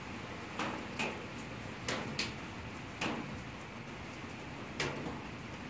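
Steady rain hiss with a wood fire in a steel burn barrel giving about six sharp pops at uneven intervals.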